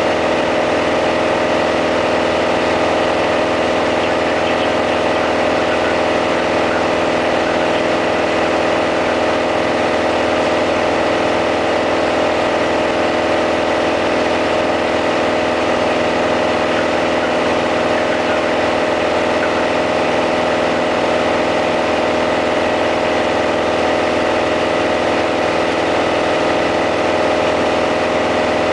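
Piper PA-28-180 Cherokee's 180 hp Lycoming four-cylinder engine and propeller running at a steady power setting in flight, heard from inside the cabin as a constant drone with no change in pitch.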